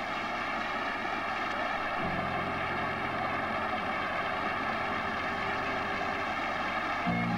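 A steady drone of many held tones stacked together, with a deeper tone joining about two seconds in.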